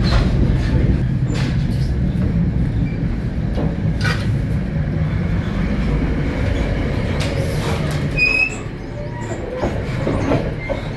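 Commuter rail coach running on the rails, heard from inside: a steady low rumble with scattered clicks from the wheels over rail joints. A short high-pitched wheel or brake squeal comes about eight seconds in, and the rumble then eases as the train slows for the station.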